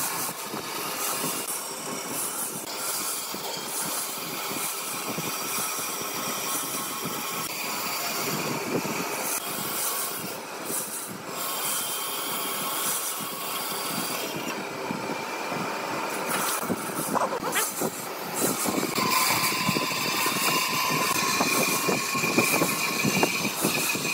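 Bandsaw running and cutting through thick timber along a curved line. From about 19 seconds in, a steadier whine at two pitches rises over the cutting noise.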